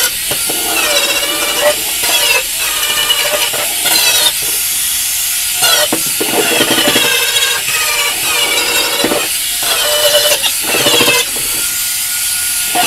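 Angle grinder with a flap disc grinding sheet steel, stripping the coating around a hole down to bare metal. It makes a steady grinding noise with a high whine that wavers in pitch as the disc bites and eases off.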